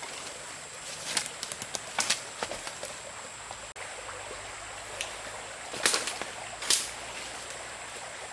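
A few irregular chopping strokes of a blade into wood or bamboo, the strongest two near the end, over a steady background hiss.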